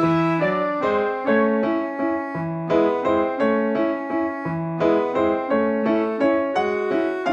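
Background piano music: a gentle melody of struck notes, about two or three a second.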